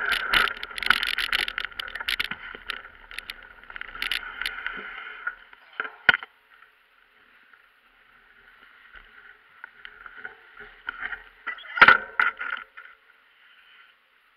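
Wind buffeting a small action camera's microphone, with knocks and rubbing from the camera being moved, strongest in the first five seconds. It nearly dies away about six seconds in, then comes back more weakly, with a sharp cluster of knocks around twelve seconds in.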